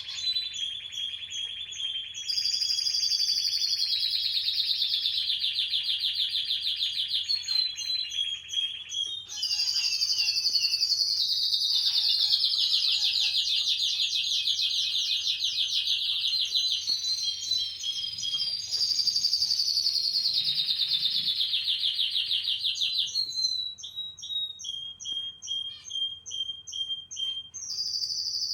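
Canary singing: long runs of rapid, high-pitched trilled notes, several phrases sliding downward in pitch with short breaks between them, and shorter separate notes near the end.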